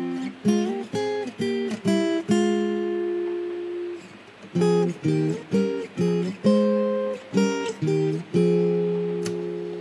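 Karaoke backing track of the song's intro: an acoustic guitar strumming chords, some struck in quick groups and others let ring and fade for a second or two.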